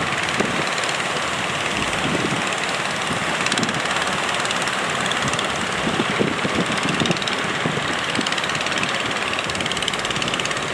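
Fishing boat engines running over the steady rush of breaking surf at a river mouth.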